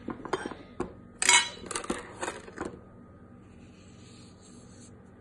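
A few clinks and knocks of cutlery and dishes in the first three seconds, the loudest about a second in. Then a faint soft hiss as salt is sprinkled by hand into a bowl of oily marinade.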